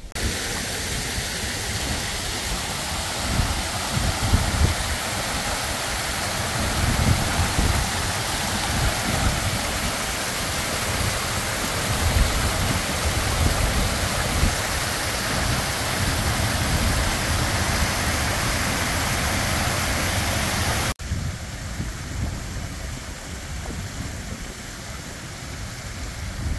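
Storm runoff from heavy rain pouring down tiered rock ledges in many small waterfalls: a steady rushing splash of water, with gusts of wind rumbling on the microphone. About three-quarters of the way through it cuts to a quieter, more distant rush of water.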